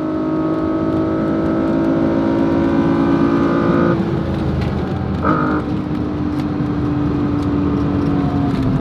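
BMW E36 M3's straight-six engine under hard acceleration, heard from inside the cabin: its pitch climbs for about four seconds, breaks at a gear change, then holds steady at high speed.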